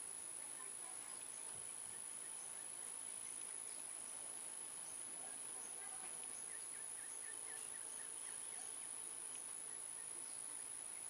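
Outdoor ambience of insects, with one high, unbroken insect tone held throughout under a faint even hiss. A quick run of short chirps comes a little past halfway.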